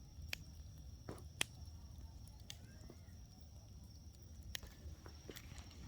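Wood bonfire crackling: a few scattered sharp snaps and pops from the burning wood over a low steady rumble.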